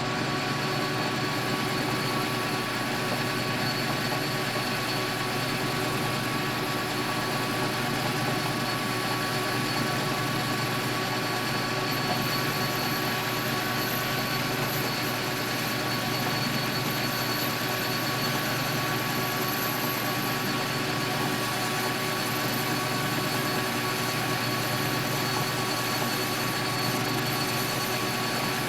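Metal lathe running steadily with a constant hum and a few steady whining tones.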